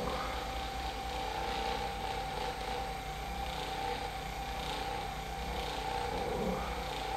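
Electric massager running steadily: an even motor whine with rapid pulsing underneath.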